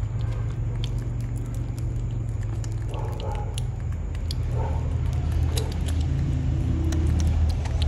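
Baby macaque chewing a slice of fruit, with small scattered wet clicks and smacks, over a steady low rumble that grows slightly louder in the second half.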